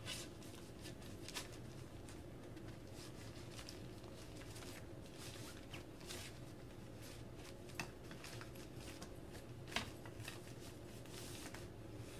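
Fabric rustling and scraping as a baby swing's seat tube is pushed through the fabric flap of the seat pad, with a few sharper clicks of the tube.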